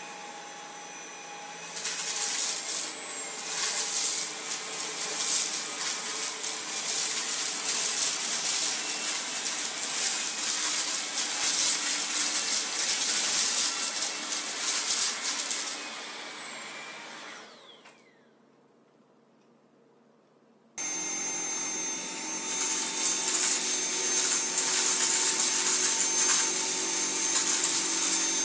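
Tineco PURE ONE S11 cordless stick vacuum running over carpet in auto power mode, going louder about two seconds in as it meets a line of chili flakes, flax seeds, split peas and cereal, with the crackle of debris being sucked up. It winds down with a falling whine. After a brief silence a Dyson V7 Motorhead cordless vacuum starts, running steadily on low power with a high whistle.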